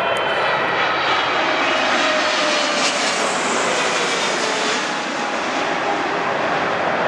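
Boeing 777-300ER's twin GE90-115B turbofan engines on final approach, passing low overhead: loud, steady jet noise with faint whining tones that slowly fall in pitch as the aircraft goes by, the hiss brightest about halfway through.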